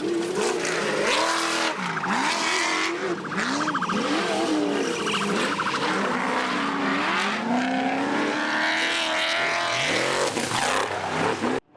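Off-road race vehicle engine revving hard, its pitch rising and falling over and over as the throttle comes on and off, with a second engine heard alongside it later on. The sound cuts off abruptly just before the end.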